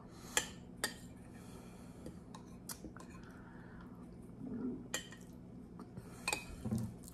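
Metal spoon clinking against a glass serving bowl while food is scooped out: a series of sharp, irregular clinks.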